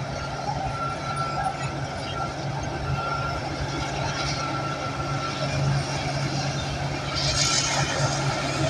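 Bulldozer's diesel engine running steadily under load as the machine works, with a brief burst of hiss about seven seconds in.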